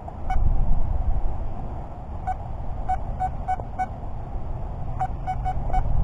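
Nokta Makro Anfibio Multi metal detector giving short, same-pitched target beeps as its coil sweeps the ground: one early, a quick run of five a little after two seconds in, and four more near the end. A low rumbling noise runs underneath.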